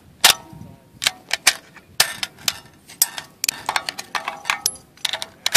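Rifle cartridges being pressed one by one into a metal box magazine: a string of sharp metallic clicks, irregularly spaced at about two or three a second.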